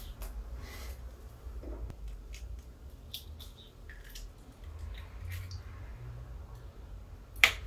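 Raw egg being separated by hand over a bowl: faint wet squishes and light clicks as the yolk is passed between the fingers and the white drips off. One sharper, louder click comes near the end, over a low steady hum.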